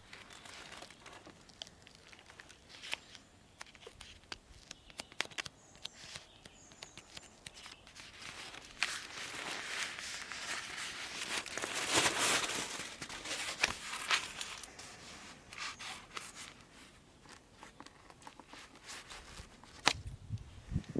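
Handling of a foil-faced foam insulation sheet and its paper backing: scattered crinkling and clicks, with a longer, louder rasping stretch from about nine to fourteen seconds in.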